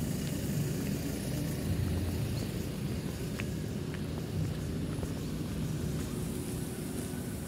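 Low, steady rumble of street traffic, with a couple of faint clicks.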